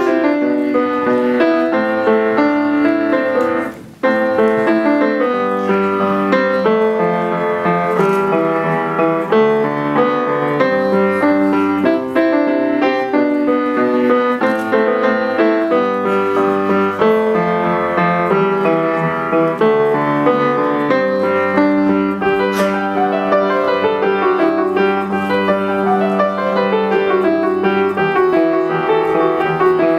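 Grand piano played solo, a continuous run of many notes; the sound dies away briefly about four seconds in, then the playing resumes.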